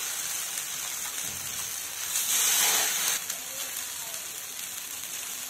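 Semolina and gram-flour snack squares sizzling in shallow oil on a nonstick tava, a steady frying hiss that swells louder for about a second around two seconds in.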